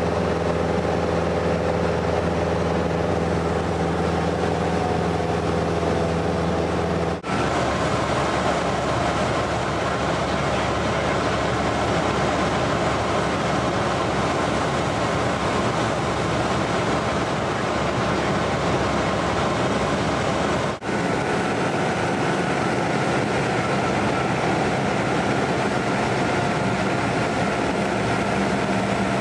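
Cessna 172N Skyhawk's four-cylinder Lycoming engine and propeller running steadily in flight, heard inside the cabin. There are two brief breaks, about seven and about twenty-one seconds in, after each of which the engine tone sits slightly differently.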